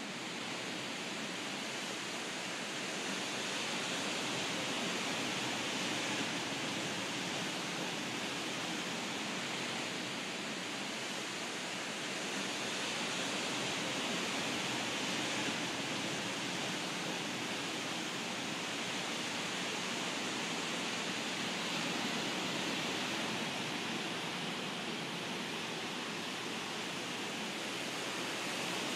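Ocean surf: waves breaking and washing as a steady, even rush.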